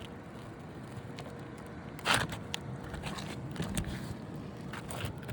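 Asphalt roof shingle being pried up, its sealant strip crackling as the seal breaks, with small scattered clicks and one louder crack about two seconds in.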